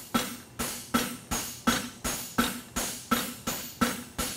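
A big hammer striking a flatter on a hot steel horseshoe on an anvil, at an even pace of about three blows a second, each with a short metallic ring. It is flattening the ridge out of a hind draft bevel shoe.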